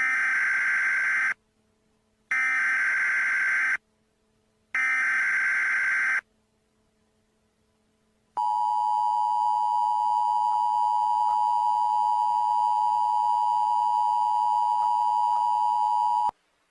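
Emergency Alert System header: three short bursts of buzzy digital data tones, each about a second and a half long, followed by the EAS two-tone attention signal, a steady tone held for about eight seconds before it cuts off. This sequence marks the start of a new emergency alert.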